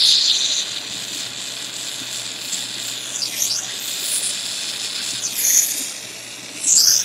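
Small jeweler's soldering torch hissing steadily while heating a sterling silver pendant for soldering. The hiss swells near the start and sweeps down and back up in pitch several times.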